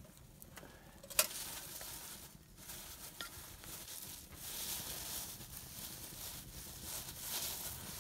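Plastic bag crinkling and rustling as it is handled, swelling a few times, with a single sharp click about a second in.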